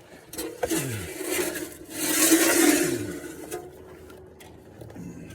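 Oil pan scraping and rubbing as it is worked back out from under the engine, loudest about two seconds in.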